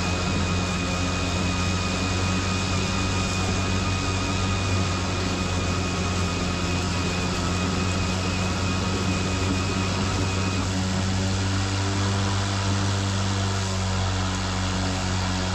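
Ego 21-inch cordless electric lawn mower, the lower-powered single-blade model, running while cutting grass: a steady motor-and-blade hum. A thin high whine over it drops out about ten and a half seconds in.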